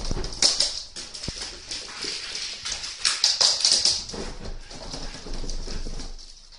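Siberian husky puppies scampering on a wooden floor, their claws clicking and pattering in quick irregular runs, with dog whimpering mixed in. The sound is busiest about half a second in and again around three to four seconds, then eases off near the end.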